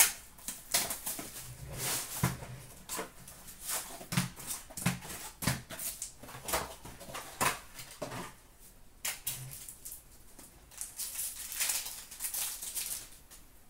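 Fleer Showcase hockey card packs being handled and torn open: a quick run of crinkling, crackling wrapper sounds, with a few soft knocks as packs and cards meet the counter.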